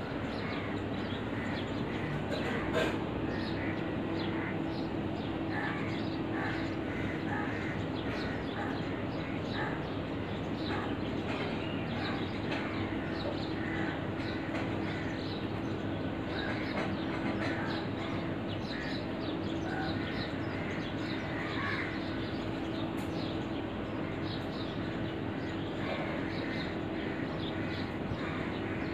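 Crows cawing off and on, with short bird calls scattered through, over a steady low hum and outdoor background noise. A sharp click about three seconds in is the loudest single sound.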